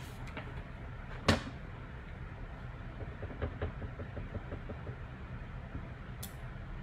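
A sharp knock on the craft table about a second in, then a run of light, quick taps as a clear acrylic stamp block is dabbed on an ink pad, over a low steady hum.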